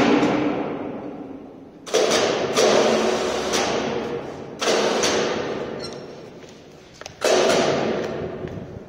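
Heavy clunks of a steel clamp lifter and large fireclay blocks being handled, four sudden knocks about 2, 2.5, 4.5 and 7 seconds in, each ringing out and fading slowly in a large hall.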